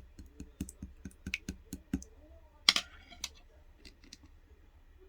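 Clear slime being squeezed and worked by hand, giving quick sharp clicks about five a second, then a louder crackle nearly three seconds in and a few scattered clicks after.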